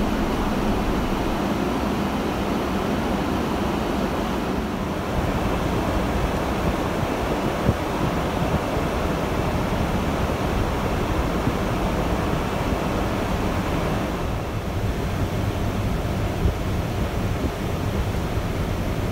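Steady rush of airflow and engine noise inside the cabin of a Rolls-Royce-powered Boeing 747-400 in descent. The low rumble shifts slightly about five seconds in and again around fourteen seconds, with a single faint click near eight seconds.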